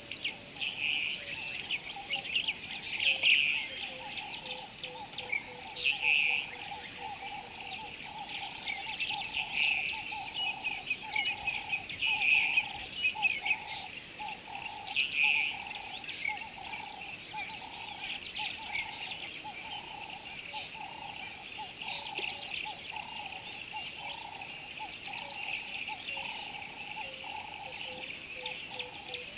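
Birds chirping and singing in repeated bursts over a steady, high-pitched insect drone, with a lower, rhythmic calling underneath. The bird song is strongest in the first half and thins out after that.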